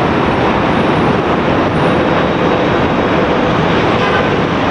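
Jet airliner engines running, a loud, steady rush of noise that does not rise or fall.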